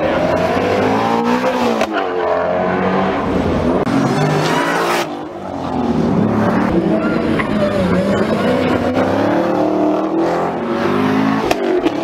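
Car engines revving hard as cars accelerate past on a track. The pitch climbs and drops repeatedly as they shift, and there is a brief screech of tires about four to five seconds in.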